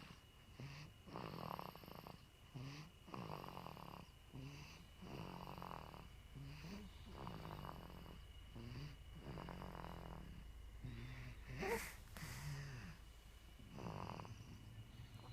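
A two-month-old baby snoring softly, a rasping breath every second and a half to two seconds. About twelve seconds in, one louder breath carries a short squeak.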